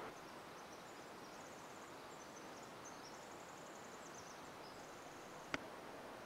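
Quiet rainforest ambience: a faint steady hiss with thin, high-pitched chirping trills through the first five seconds, and a single sharp click about five and a half seconds in.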